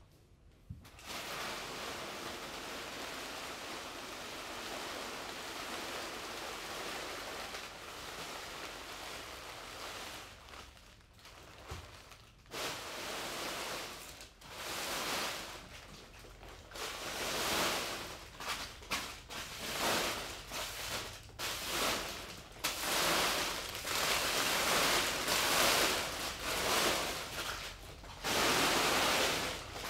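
A heap of individually wrapped fortune cookies being gathered and pushed across a hard floor by hand, the metallic gold wrappers crinkling and rustling. A steady rustle for the first ten seconds or so, then uneven bursts of crinkling, louder toward the end.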